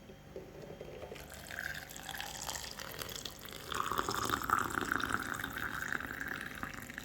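Boiling water being poured into a glass. The pour starts about a second in, grows louder and fuller midway, and stops just before the end.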